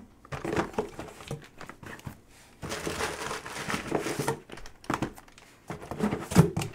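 Cardboard shipping case being handled and lifted over a stack of sealed Topps Tier One baseball hobby boxes: irregular rustling, scraping and crinkling of cardboard and packing paper, with a few bumps, the sharpest near the end.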